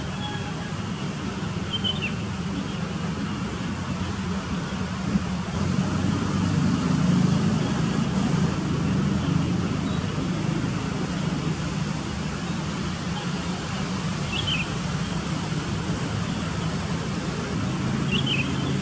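Steady low outdoor rumble that swells a little midway, with three short high chirps: one about two seconds in and two near the end.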